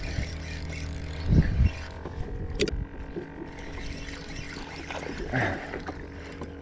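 Spinning reel being cranked while playing a hooked fish, over a steady low hum, with a dull thump about a second and a half in and a sharp click a little later.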